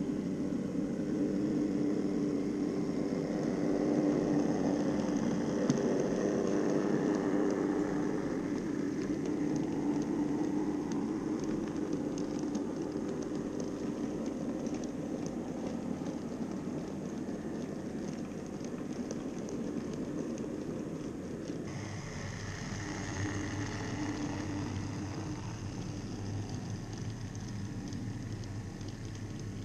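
Model trains running on the layout's track: a steady whir of metal wheels on rails and small electric motors, with a faint held hum. The sound changes abruptly a little over two thirds of the way through.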